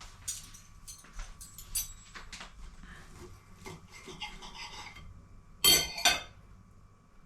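Cutlery and a plate clinking and scraping as the chicken fillets are served, with two loud sharp knocks in quick succession about two-thirds of the way through.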